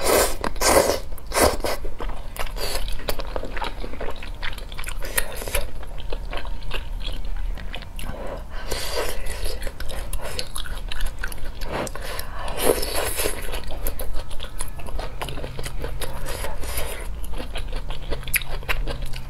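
Close-miked eating sounds of wide, chewy noodles in spicy red oil: wet chewing and biting, with several louder slurps as the noodles are drawn into the mouth.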